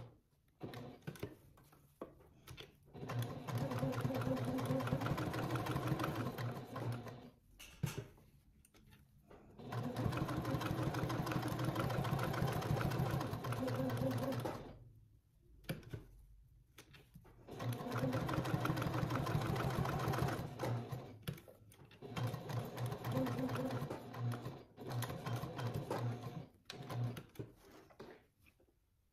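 Janome HD9 straight-stitch sewing machine stitching through layered quilting cotton, topstitching. It runs in several stretches of a few seconds each, with short stops between.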